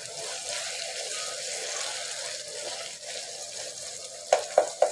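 Beef keema with kachnar buds sizzling as it fries in a nonstick pan while a spatula stirs it. Near the end come a few sharp knocks of the spatula against the pan.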